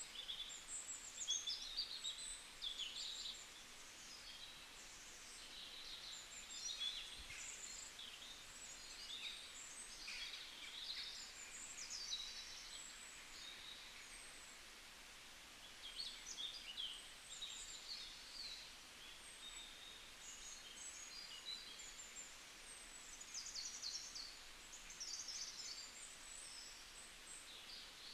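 Several small songbirds chirping and trilling in rapid, overlapping high-pitched phrases, coming in clusters with short lulls between, over a faint steady hiss.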